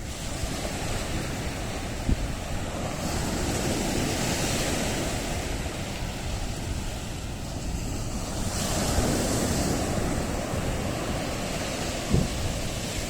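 Ocean surf washing in continuously, with the hiss swelling as two waves break, about three seconds in and again around eight and a half seconds. Wind rumbles on the microphone underneath.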